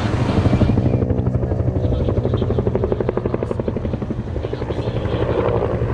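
Helicopter in flight, its rotor blades beating in a fast, even rhythm.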